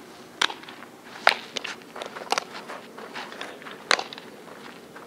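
Sharp slaps of a softball hitting leather fielding gloves, four loud ones spread over a few seconds, with quieter scuffs of cleats on infield dirt in between.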